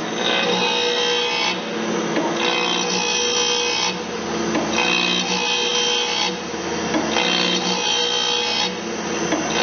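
Automatic bandsaw blade sharpener running: a motor hum under the grinding wheel rubbing across the blade teeth. The grinding rises and falls in a regular cycle about every two and a half seconds as the machine works tooth by tooth.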